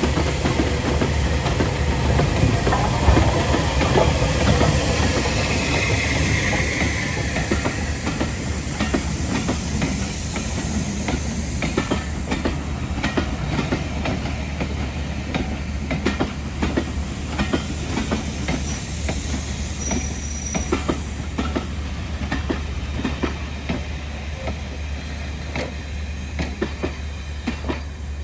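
A train passing close by on a heritage railway. It starts as a loud rushing hiss, then the wheels click over the rail joints again and again, and the sound fades toward the end as the train moves away.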